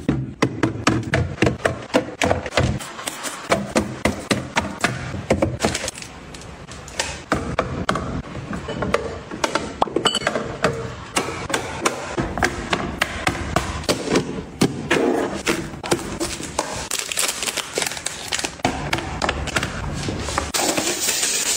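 Drink bottles and clear plastic containers being set down and slid into a refrigerator's shelves and door bins: a busy run of taps, clinks and knocks.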